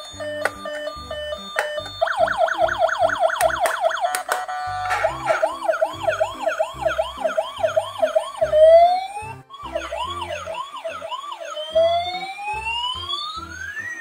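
Battery-powered toy ambulance's electronic siren cycling through its patterns: short beeps, then a fast warble about two seconds in, slower repeated whoops, a brief break, and long rising wails near the end.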